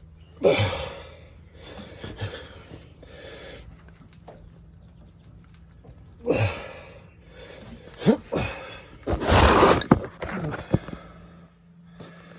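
A man's hard breaths and grunts of effort while he forces a rubber-cemented plug into a punctured tire with a T-handle plug tool. There is one sharp burst near the start, then a run of several more in the second half, the longest about a second.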